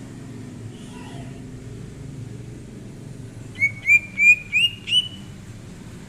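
Green leafbird (cucak ijo) singing a short phrase of five loud, rising whistled notes, about three a second, each a little higher than the one before. A steady low rumble runs underneath.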